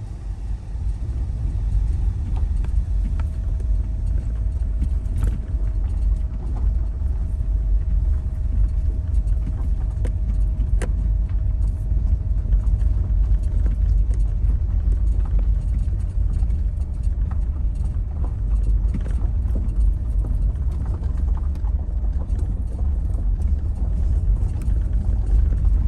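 Car driving: a steady low rumble of road and engine noise, with a faint steady whine and scattered light clicks.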